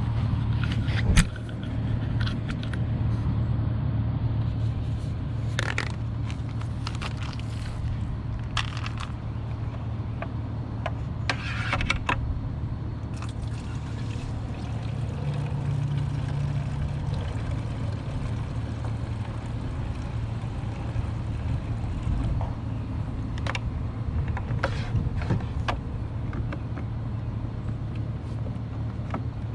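Scattered clicks and scrapes of the pressure washer's plastic detergent dispenser being handled while cleaning solution is poured in, over a steady low motor hum.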